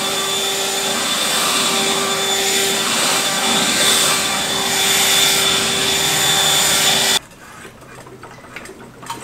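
Handheld leaf blower running steadily: a rush of air with a constant motor tone. It cuts off suddenly about seven seconds in, leaving only a quiet background.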